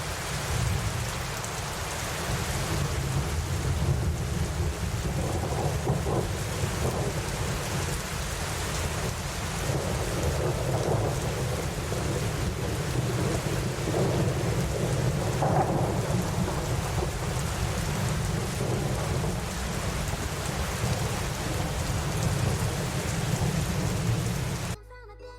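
Steady rain falling on tree leaves and the ground, with a continuous low rumble of thunder underneath. The rain cuts off suddenly near the end.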